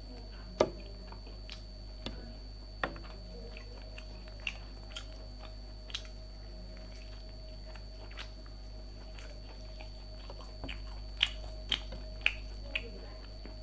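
A person eating close to the microphone: chewing with scattered sharp mouth clicks and smacks, a quick cluster of louder ones about eleven seconds in, over a steady background hum.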